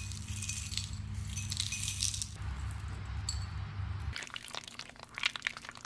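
Crushed cornflakes poured from a small glass cup onto a yogurt-coated ice cream drumstick, rattling and rustling as they land. This is followed by crisp crackles as the crumb-coated piece is lifted and loose flakes fall back into the dish, over a low hum that stops about four seconds in.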